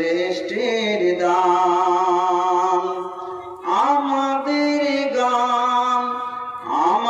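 A man's voice chanting a devotional melody unaccompanied, holding long wavering notes. A phrase fades out about three and a half seconds in, and a new one starts with an upward slide, with another starting near the end.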